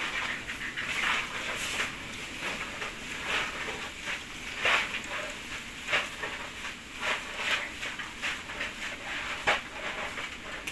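Broom sweeping a dirt floor: short, scratchy swishes at an irregular pace of about one a second.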